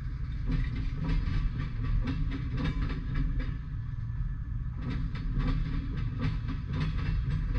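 Freight train of tank cars and boxcars rolling past: a steady low rumble with repeated sharp clacks as the wheels pass over rail joints.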